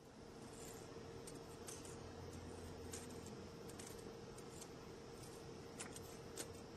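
Quiet room tone with a steady faint hum and scattered light clicks, a few a second.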